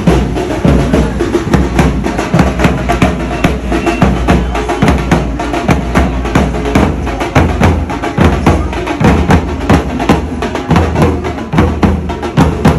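Loud music driven by fast, continuous drumming, with many rapid strikes over a deep steady bass.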